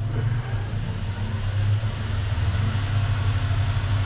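Valve seat cutting machine running with its cutter turning in an exhaust valve seat of a Peugeot 205 GTI aluminium cylinder head, a steady low hum. The seat is being recut because it was slightly out of true on one corner.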